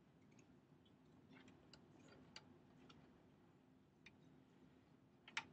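Near silence: room tone with a faint steady hum and a few scattered light clicks, the sharpest pair near the end.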